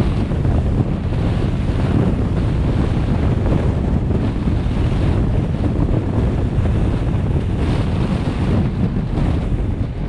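Steady wind rumble buffeting the microphone of a camera on a moving vehicle.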